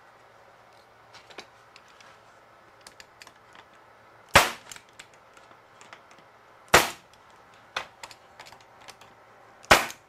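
Pneumatic stapler firing three times, roughly two to three seconds apart, driving 1.5-inch galvanized staples into the corners of a wooden box, with light clicks and knocks of the boards being handled in between.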